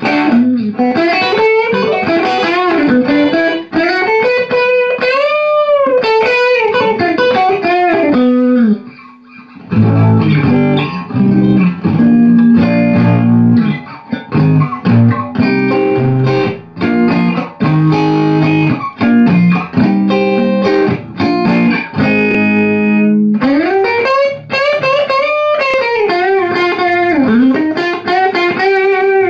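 Electric guitar played through a small tube amplifier: lead lines with wide string bends, a short break about nine seconds in, then lower riffing and chords, and bent lead notes again near the end.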